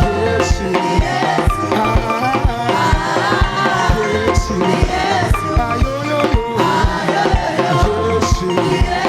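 Praise and worship music: voices singing a melody over a steady, quick drum beat.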